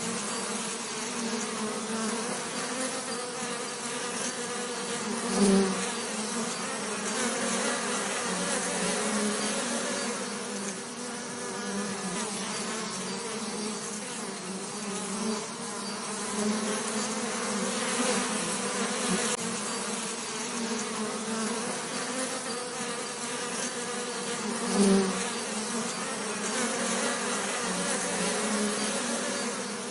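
Bees buzzing: a steady, wavering hum that swells louder twice, about five seconds in and again near 25 seconds.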